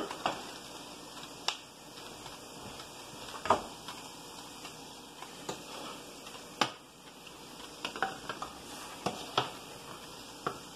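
Greens cooking in a stainless steel pot with a steady low sizzle, broken by about ten sharp clinks and knocks of dishes and a fork being handled.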